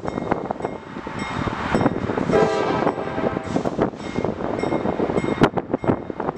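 CSX diesel locomotives led by CM44AC 7224 rolling slowly over yard trackwork: engines running with steady clicking and clanking of wheels over joints and switches. A brief horn sounds about two and a half seconds in, and one sharp clank comes near the end.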